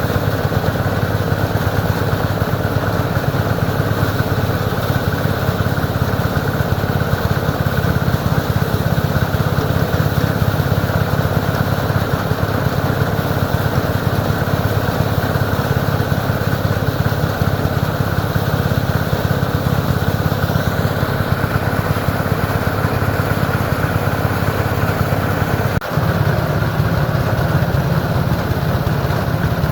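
An engine running steadily at a constant speed, with a brief dip and a knock near the end.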